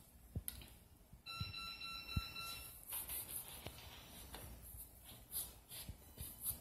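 Chef's knife cutting through a raw red potato, with a few soft knocks of the blade on a plastic cutting board. About a second in, a steady electronic beep sounds for about a second and a half.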